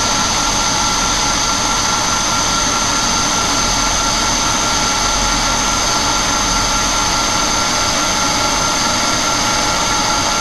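Vertical milling machine running steadily, a fly cutter spinning to deck the face of a welded cast-aluminum housing, with a constant high whine.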